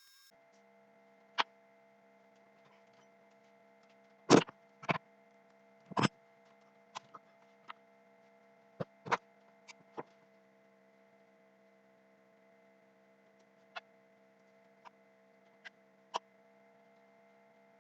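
Scattered sharp clicks and knocks at irregular intervals, loudest in a cluster of three about four to six seconds in, over a faint steady electrical hum.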